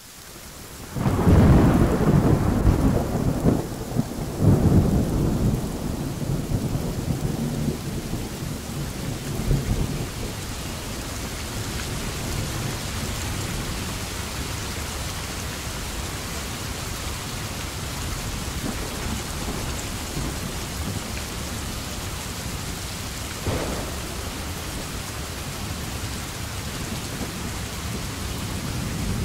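Steady rain with a roll of thunder that begins about a second in, swells twice and rumbles away over the next several seconds. A shorter, fainter rumble comes about three-quarters of the way through.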